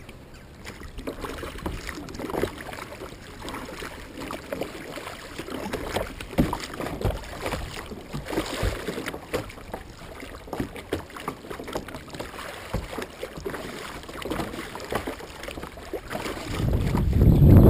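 Kayak paddling: a double-bladed paddle dipping and splashing in choppy sea water beside the hull, in irregular strokes. Near the end a louder low rumble of wind on the microphone comes in.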